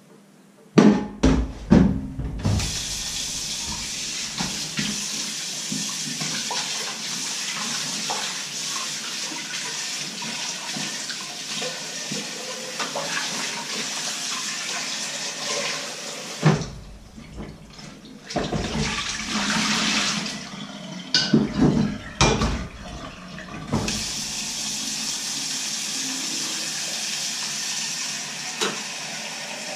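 Kitchen tap running into a stainless-steel sink during hand dishwashing, with sharp knocks and clatter of pots and dishes about a second in. Around the middle the steady flow breaks off for a moment amid more clattering and splashing, then the tap runs steadily again.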